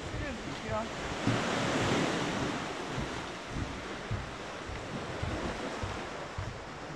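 Sea waves washing and wind buffeting the microphone: a steady rushing noise with irregular low thumps. The rush swells for a couple of seconds about a second in.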